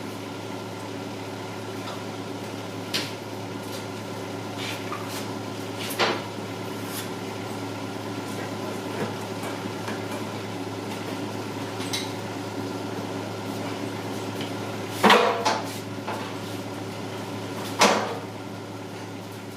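A steady machine hum, with sharp clanks and knocks every few seconds; the loudest come about fifteen seconds in and again near the end.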